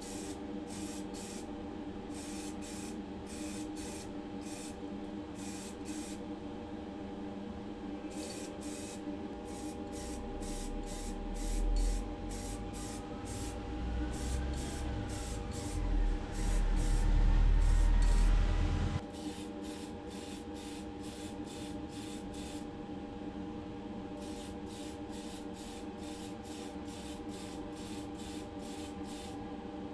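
Paint spraying onto a small diecast car body in short, regular hissing bursts over a steady hum. Partway through, a louder low rumble with a rising and falling whine lasts several seconds.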